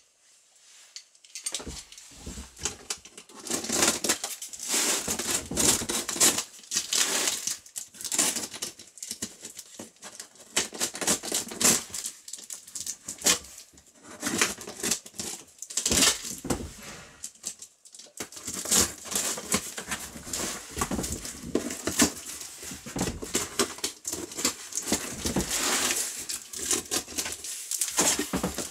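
Packing tape being torn off a cardboard box and the cardboard flaps handled: an irregular string of crackling, tearing and rustling sounds with short pauses.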